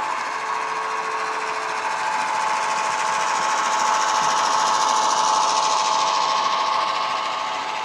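Model Irish 141 class diesel locomotive running with an ESU DCC sound decoder, its recorded diesel engine sound playing steadily through a bass-enhanced speaker along with the model's running noise on the track. It gets louder as the locomotive passes close by, about halfway through, then eases off near the end.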